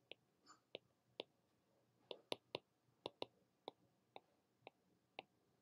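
Faint, irregular clicks of a stylus tip tapping a tablet or drawing surface as handwriting is written, about a dozen over a few seconds.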